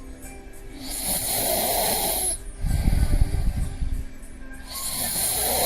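A sleeping man snoring: a raspy, hissing breath in about a second in and again near the end, each followed by a deeper breath out. Faint television voices and music run underneath.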